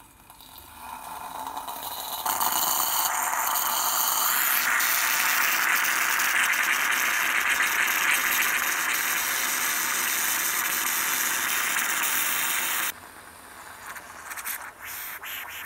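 Bialetti New Brikka moka pot hissing and sputtering as coffee is forced up through its pressure valve into the upper chamber, building over the first couple of seconds, then holding steady and loud until it cuts off suddenly near the end; the brew is coming out with crema, a successful extraction. A few light clicks follow.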